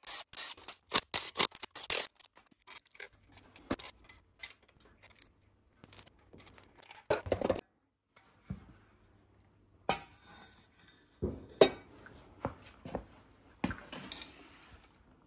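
Small metal engine parts clinking and knocking against a Td5 diesel's aluminium cylinder head as they are lifted out and set down by hand. A quick run of clicks comes first, then single knocks and clinks with short pauses between them.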